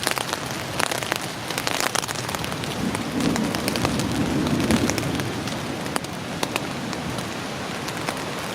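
Heavy rain falling on a tent and its tarp, a dense hiss full of sharp drop hits. A low rumble of thunder swells about three seconds in and dies away about two seconds later.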